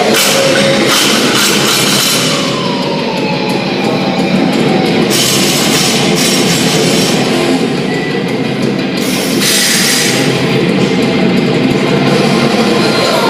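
Loud rock music with drums and guitar, heavy-metal style.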